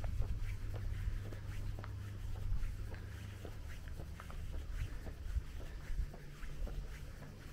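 Footsteps scuffing and crunching on a stony path, a few irregular steps a second, over a steady low rumble.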